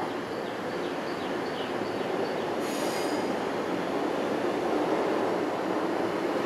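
MTR M-Train electric multiple unit rolling slowly along depot track, its running noise slowly growing louder as it approaches, with a brief high-pitched wheel squeal about three seconds in.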